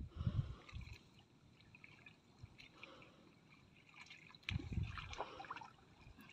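Muddy ditch water sloshing and dripping as a person wades and gropes through it by hand, louder twice, near the start and again about four and a half seconds in.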